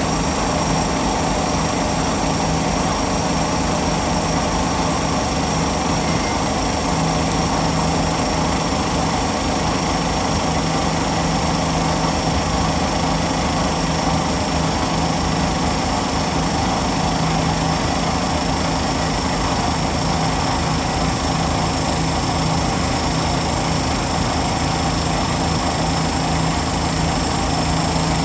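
CNC machine running steadily while machining a metal flange: a constant mechanical hum with several held tones, unchanging throughout.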